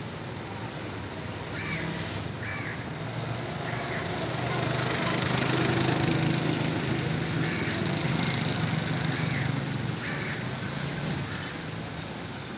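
Street traffic noise with a vehicle engine running nearby, growing louder through the middle and easing off again, with a few short high calls over it.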